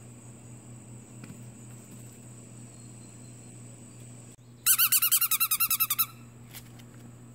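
Small dog giving a quick run of high-pitched yips, about a dozen in just over a second, starting a little past halfway.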